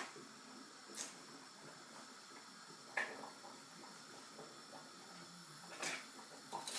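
Quiet kitchen with a faint steady hiss, broken by a few light knocks and clicks of cookware being handled: one about a second in, one at about three seconds, and a couple near the end.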